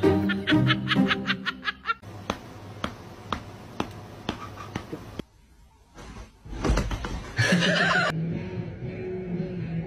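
A person laughing hard in rapid bursts for about two seconds, then a run of evenly spaced light ticks and, later, a louder, noisier stretch.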